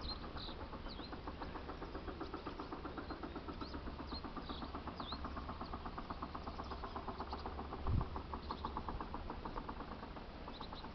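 Outdoor wildlife sound: small birds giving short high chirps over a long run of rapid, even pulses from a calling animal, with a low wind rumble. There is a dull thump about eight seconds in.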